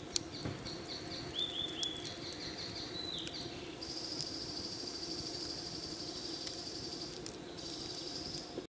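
Campfire crackling with scattered sharp pops, under a steady low rushing. In the first three seconds birds chirp in short repeated runs, and from about four seconds in a high steady insect buzz joins, breaking off briefly once. The sound cuts off just before the end.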